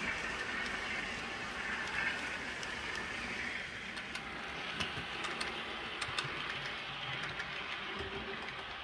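Model trains running on the layout's track: a steady whirr of wheels and motor that fades about four seconds in, then a run of light clicks from the wheels as a second train passes.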